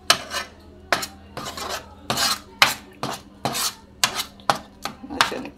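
Metal spoon scraping and knocking against a pan as it stirs thick masala paste, in quick repeated strokes of roughly two a second.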